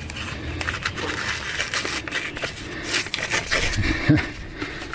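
A freshly sharpened single-bevel axe-head edge cutting through material by hand, making irregular crackling and scraping sounds.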